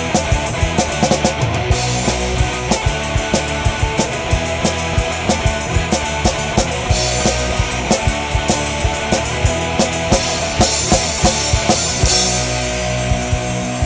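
Rock music with a fast, driving drum-kit beat.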